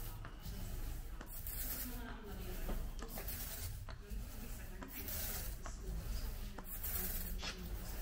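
A long-handled spreader worked back and forth over wet resin on a fibreglass layup, scrubbing in repeated strokes about once a second.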